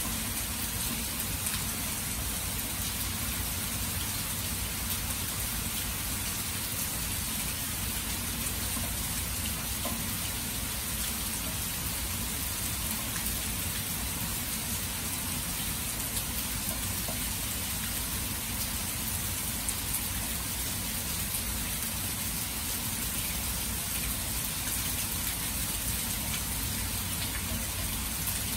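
Steady rain falling on open water and grass: an even, continuous hiss.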